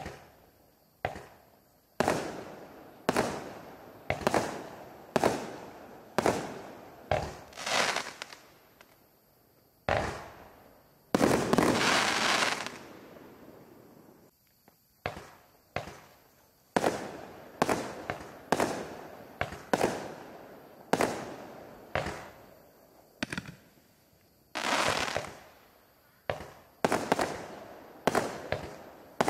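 A 19-shot consumer fireworks cake (BW1224 Red White Blue Mini) firing its shots one after another, roughly one a second: each a sharp bang or pop with a short fading tail. A longer, louder burst comes about eleven seconds in, and there are brief pauses between volleys.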